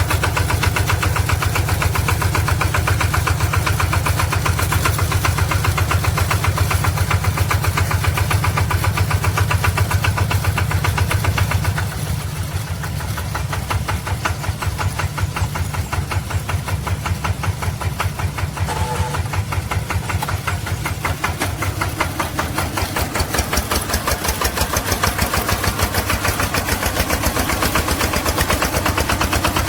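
Engine of a homemade tracked rice-spraying machine running with a steady, even pulse. It drops a little in loudness about twelve seconds in and builds back over the next several seconds.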